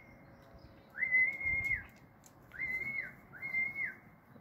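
Whistling at a steady high pitch, three times: one long whistle about a second in, then two shorter ones. Each slides up, holds, and drops away.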